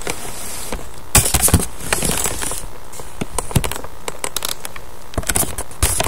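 Irregular small clicks and scrapes as a ceiling fan blade is handled and slid along the fan's metal quick-connect blade mount, over a steady hiss. The clicks bunch up a little after a second in and again near the end.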